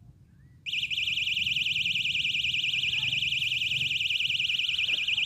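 Electronic fishing bite alarm sounding a continuous, fast-warbling high tone for about four and a half seconds. It starts a little under a second in and cuts off abruptly near the end. This is the sign of a fish taking line from a set rod.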